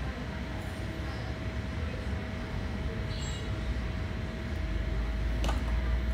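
Steady low background rumble with a faint constant tone over it, and a light click about five and a half seconds in.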